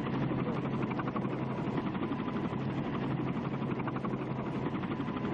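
Helicopter running nearby, a steady, rapid rotor chop with engine noise.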